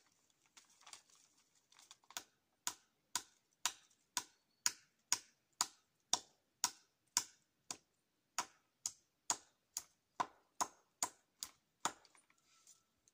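Hammer driving a nail into a wooden post, about twenty sharp strikes at a steady two a second, faint at first and soon loud, with a brief pause about eight seconds in.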